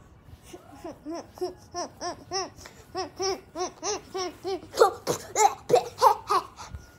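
A young boy laughing in a quick, even run of repeated 'ha' sounds, about three a second, turning louder and more broken near the end.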